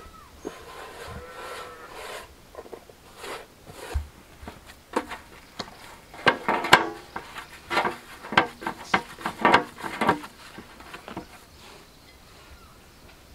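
Hands kneading chapati dough on a large metal plate: first a rubbing, scraping sound as the flour and water are worked together, then a run of irregular knocks with a short ring of the plate from about five to ten seconds in, as the dough is pressed and slapped against it.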